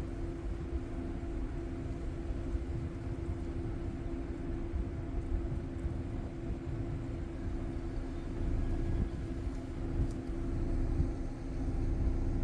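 Steady hum of an idling car heard from inside the cabin: two constant hum tones over a low rumbling noise, growing slightly louder near the end.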